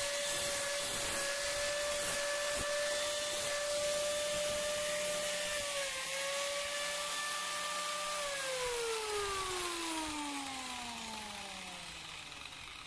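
Handheld angle grinder running against the steel edge of a curved chopping blade, sharpening it with a steady whine and grinding hiss. About eight seconds in it is switched off and its whine falls steadily as the disc spins down.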